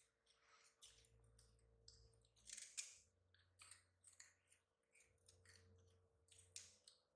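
Near silence with faint scattered clicks and rustles over a low hum, one cluster of clicks standing out a little under three seconds in.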